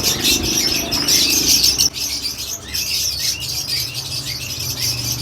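Many caged birds, small parrots among them, chirping and chattering continuously all at once, a dense wall of high calls.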